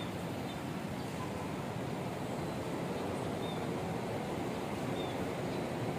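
Steady outdoor background noise, a low even rumble like distant traffic, with a couple of faint short high chirps about three and five seconds in.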